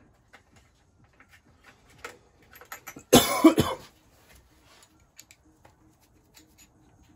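A person coughs, one short hard burst about three seconds in, between light clicks and taps of tools being handled at a metal tool chest.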